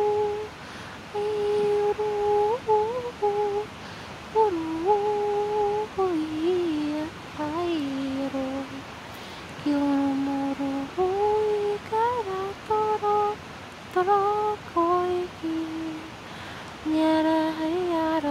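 A voice humming wordless channeled 'light language' in long held notes that slide up and down between pitches, in short phrases with brief breaks between them.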